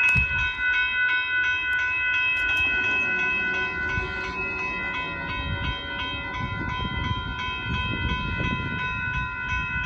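Railroad grade-crossing bells ringing steadily while the rumble of the approaching Amtrak Texas Eagle builds from about halfway in.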